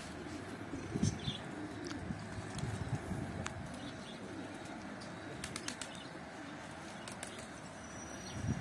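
Pigeons' wings flapping in a few short bursts, mostly in the first three seconds, with a few light ticks later on.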